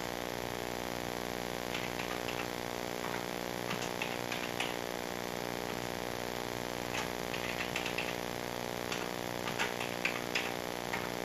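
Computer keyboard keys clicking in short runs as lines of assembly code are typed in, over a steady electrical buzz.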